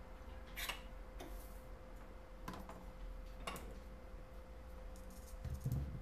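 Soldering tools being handled: three short metallic clicks and clinks, then a dull thump near the end, over a steady faint hum.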